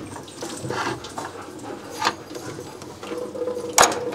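An aluminum water pump, its bolts still in it, knocking and clinking against the engine as it is worked out of a Ford 5.8 V8 by hand. There are a few light knocks, then a sharp metallic clink near the end.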